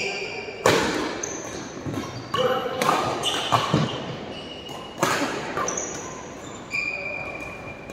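Badminton rally: sharp racket strikes on a shuttlecock every second or two, echoing in a large hall, with short high-pitched squeaks of court shoes between the hits.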